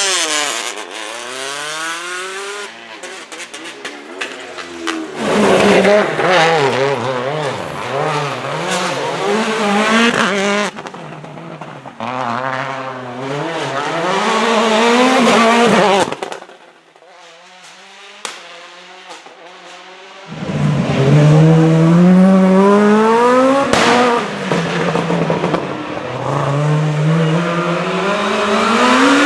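Rally car engines at full throttle, climbing in pitch and dropping back at each gear change, again and again. There is a quieter stretch about two-thirds of the way through, then another car accelerates hard.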